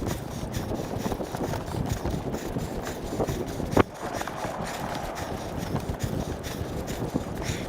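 Wind buffeting the microphone, a continuous uneven rumble, with one sharp knock just under four seconds in.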